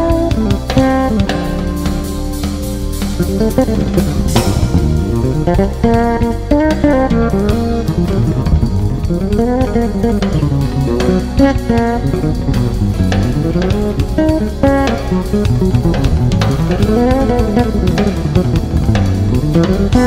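Fretless electric bass playing a jazz-fusion solo high on the neck, in quick runs that sweep up and down in pitch, with slides and vibrato, over a drum kit.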